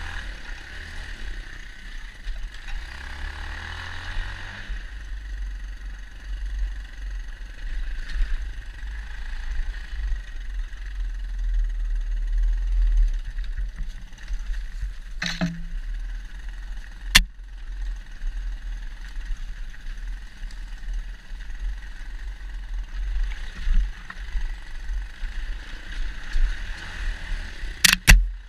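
Dirt bike ridden along a loose-dirt forest trail, heard from an on-board camera: heavy wind and riding rumble on the microphone over a faint, steady engine drone. Three sharp knocks stand out, two about halfway through and one near the end.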